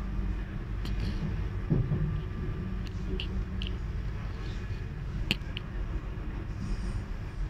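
Steady low rumble of a GWR Class 800 train on the move, heard from inside by the doors, with a few sharp clicks and rattles, the loudest a little over five seconds in.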